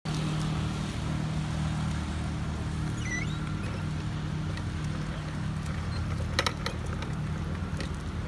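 Plastic tricycle wheels rolling over a concrete sidewalk: a steady low rumble, with a few light clicks and rattles about six seconds in.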